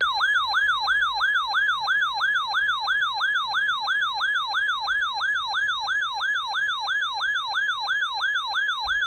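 A RadioShack 12-993 weather radio sounding its alert siren for the NOAA Weather Radio Required Weekly Test. It is a fast, steady warble of about three swooping sweeps a second, the receiver's signal that it has picked up a SAME-coded alert.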